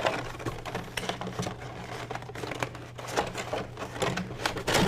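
Cardboard headset packaging being handled and pried open: a run of irregular small scrapes, taps and rustles.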